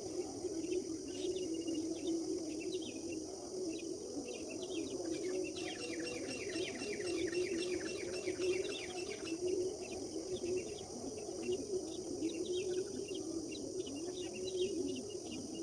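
Several birds chirping and singing, with a rapid run of trilled notes from about five to nine seconds in. Underneath runs a steady high insect drone and a low wavering hum.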